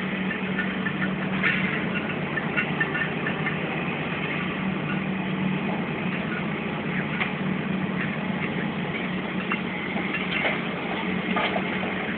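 Heavy diesel demolition machinery running steadily, with a few light scattered clatters.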